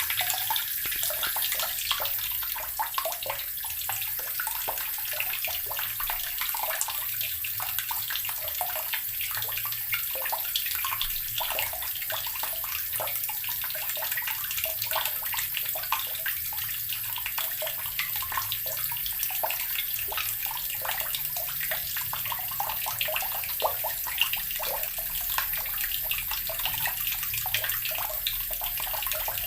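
Water from a tap pouring into an earthen barrel, gurgling and splashing steadily.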